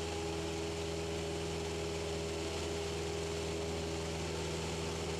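Cessna 172's piston engine and propeller droning steadily in a climb, a low, even hum with no change in pitch.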